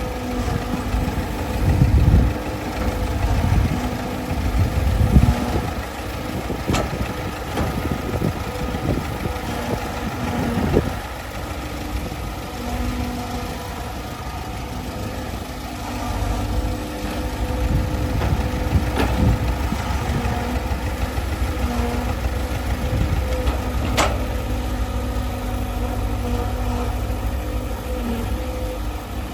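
Heavy machine's engine running steadily, mostly at idle, with louder low surges about two and five seconds in and a few sharp clicks.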